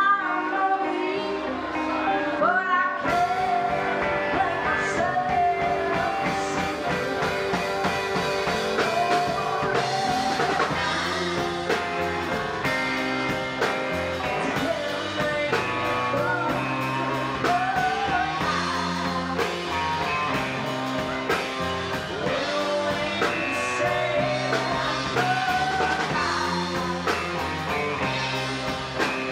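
Live band music: a female lead singer over electric guitar, keyboards, bass and drums. The opening is thinner, and the drums and cymbals come in with the full band about three seconds in.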